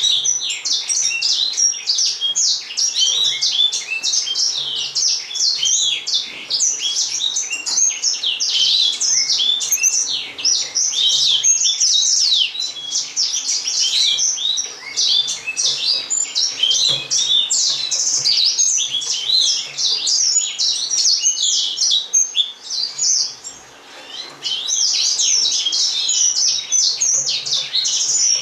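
Gouldian finches chirping: a dense, nearly unbroken run of short, high chirps and calls, which thins briefly about three-quarters of the way through.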